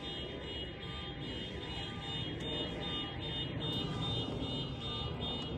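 Electronic alarm sounding: a rapid, even beeping of about five beeps a second, with a warbling tone under it for the first three seconds or so, over a steady low rumble.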